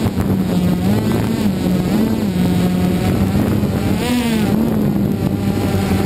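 DJI Phantom 2 quadcopter's electric motors and propellers buzzing steadily in flight, heard up close from the camera on the drone. The pitch wavers up and down slightly as the motors adjust, with a brief rise about four seconds in.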